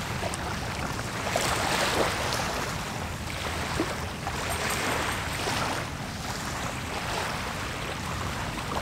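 Small waves washing up on the shore: a steady rush of water that swells and eases every second or two.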